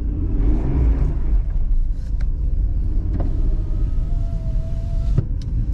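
Car running along a road of packed ice and snow, heard from inside the cabin: a steady low rumble of engine and tyres. A faint held whine comes in near the end, and there is a sharp click about five seconds in.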